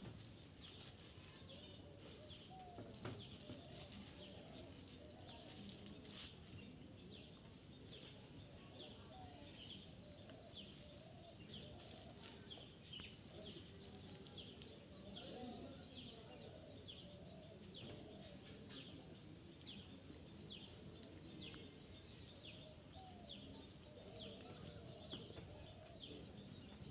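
Faint outdoor background with small birds chirping over and over, short high chirps about one or two a second.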